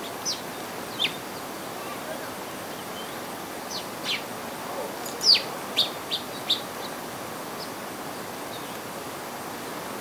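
Small songbirds chirping: about eight short, sharp, down-slurred chirps in the first seven seconds, the loudest about five seconds in, over a steady hiss.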